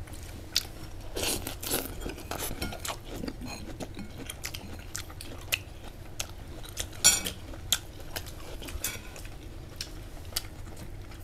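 Eating sounds: utensils clicking against plates and bowls in a string of short clicks, with crunching and chewing. The loudest clicks come about a second in and about seven seconds in.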